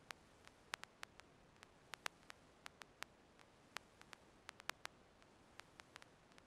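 Near silence from a recording whose sound is not working: a faint steady hiss with irregular sharp clicks, several a second.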